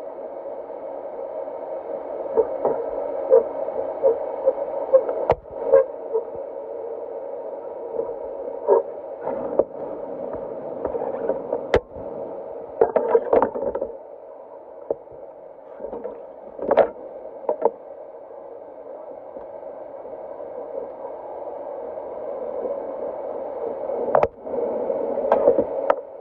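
Stainless steel stockpot being washed by hand: a steady wash of water-like noise with scattered sharp metal clinks and knocks as the pot and its steamer insert are handled.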